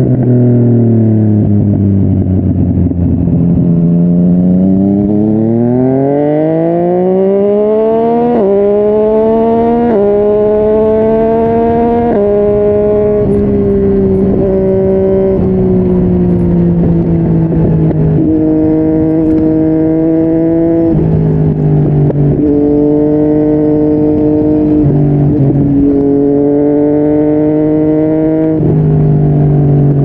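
Yamaha MT-09's three-cylinder engine through a Yoshimura R55 slip-on exhaust under riding: the pitch falls at first, then climbs hard with quick gear changes about 8, 10 and 12 seconds in, and afterwards eases to a steadier pitch that dips and rises again in the second half.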